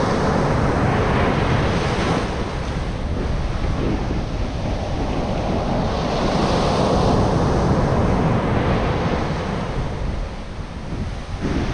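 Ocean surf washing onto a beach, swelling and ebbing, with wind buffeting the microphone.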